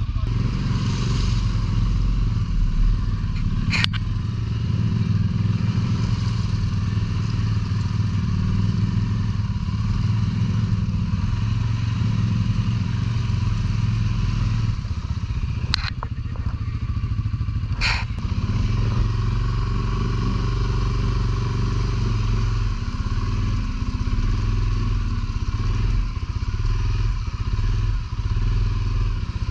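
ATV engine running steadily while riding, with a few sharp knocks about four, sixteen and eighteen seconds in.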